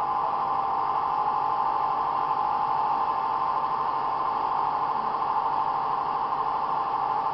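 Steady mechanical whine over an even hiss, unchanging throughout, from running foam-concrete pumping equipment.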